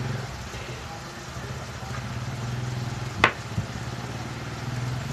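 Steady low hum that swells and fades, with one sharp click a little after three seconds in and a softer one just after.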